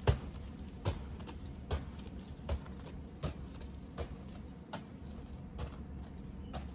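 Footsteps walking through snow, eight or nine evenly spaced steps at a steady walking pace.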